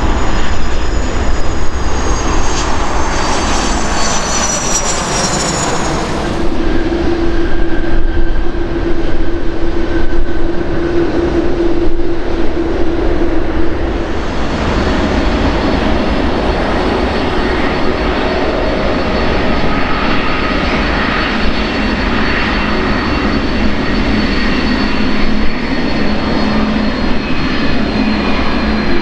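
Jet airliner engines at taxi thrust: a high whine that slides down in pitch, which changes abruptly about six seconds in, then a steady whine over a low rumble from a Delta Airbus A330-302 taxiing past.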